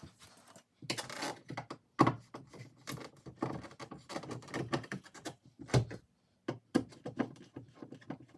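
Scattered clicks and knocks of hand work at an electrical box: the cable clamp on the Romex being tightened, with the loudest knocks about two seconds in and near six seconds.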